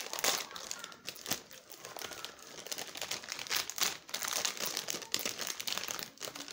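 Small plastic snack packet of corn puffs being torn open and crinkled in the hands, with irregular crackling rustles.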